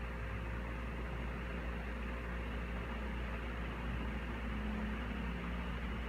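3D brand Aero Master industrial ceiling fan running steadily: a constant whoosh of air from the blades over a low, steady hum.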